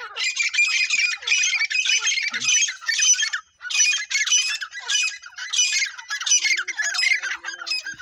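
Francolins (teetar) calling: a loud, shrill call repeated over and over, about two notes a second.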